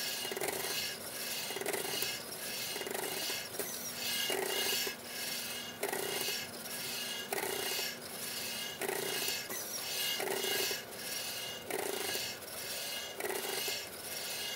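Pneumatic soft robot arm being actuated: rasping bursts of air hiss from its valves and air lines, repeating roughly one and a half times a second over a faint steady hum.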